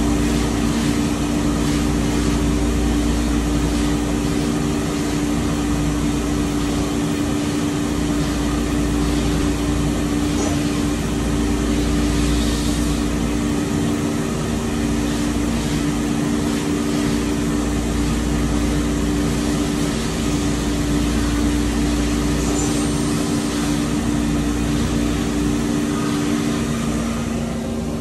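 2007 Mori Seiki DuraVertical 5060 vertical machining centre running a program, its spindle turning a ball end mill at about 3000 rpm: a steady mechanical hum with several steady pitched tones over a low rumble.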